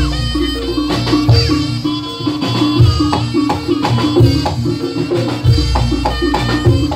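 Live jaranan senterewe music: a repeating melody of pitched notes over frequent, driving drum strokes, with a higher melodic line above.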